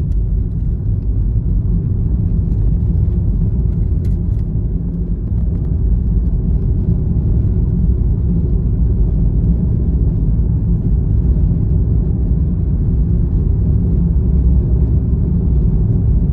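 Steady low rumble of a moving car's tyre and engine noise heard inside the cabin, a little louder from about six seconds in.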